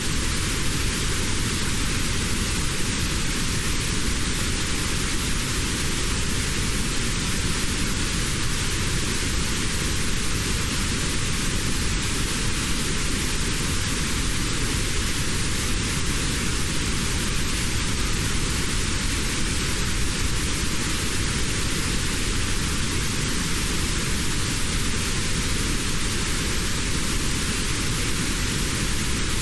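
Steady, even white-noise hiss for tinnitus masking, with a narrow slice of middle pitch (around 700 hertz) cut out. This is the notched noise used in tinnitus sound therapy.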